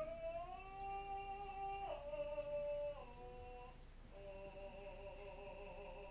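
A voice humming or singing sustained vocal-practice notes: a slow upward slide, then steps down to lower held notes about two and three seconds in, with vibrato on the last held note.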